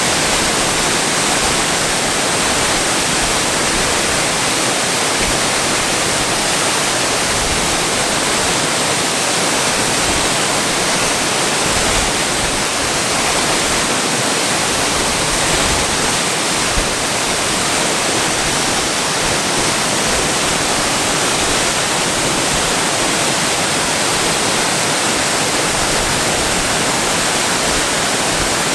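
Waterfall: a steady, loud rush of falling water, even and unbroken throughout.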